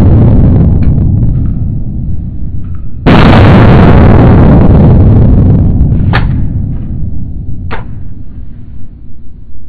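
A very loud gunshot on an indoor range about three seconds in, overloading the recording and dying away slowly in the range's echo. The opening seconds carry the fading echo of a shot fired just before. In between come a few light clicks as the Glock 17L is handled.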